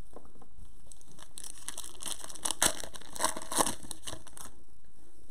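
A Prizm retail trading-card pack's wrapper being torn open and crinkled by gloved hands, crackling for about three seconds with a few sharper rips in the middle.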